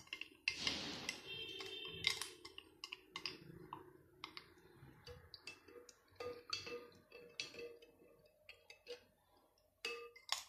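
Plastic spoon scraping and tapping against a plastic cup and a glass beaker, faint scattered light clicks, as the last of the thick sulfonic acid is scraped out into the caustic soda solution.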